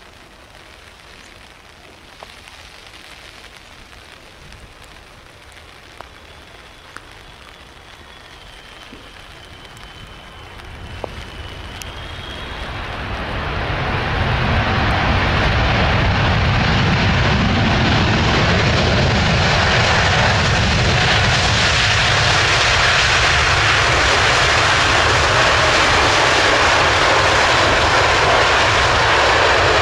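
Boeing 777 with GE90 engines landing on a wet runway: a faint jet whine on the approach, then from about ten seconds in the sound swells into loud, steady engine noise and spray. This is the engines' reverse thrust on the rollout.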